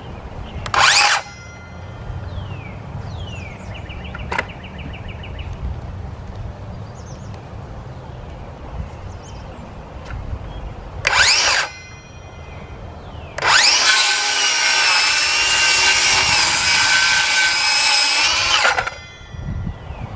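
Craftsman V20 cordless brushless 7.25-inch circular saw with a new DeWalt blade. It gives two short bursts of the motor spinning up, about ten seconds apart, then cuts through wood for about five seconds, stopping shortly before the end.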